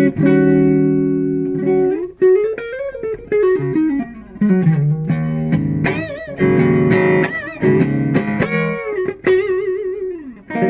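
Electric guitar, a Fender American Performer HSS Stratocaster, played on its neck single-coil pickup with the full Strat tone. A held chord rings for about two seconds, then lead phrases follow with string bends and wide vibrato.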